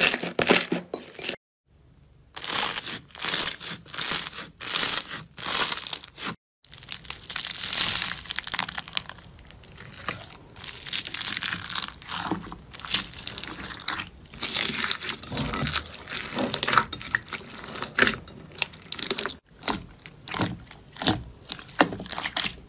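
Hands pressing, squeezing and kneading slime, a run of sticky crackling squishes that come and go with each stroke. Foam beads crunch as they are worked into a yellow slime, and the sound drops out briefly three times.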